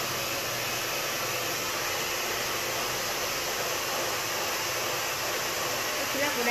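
A steady, even rushing noise with no distinct clicks or events.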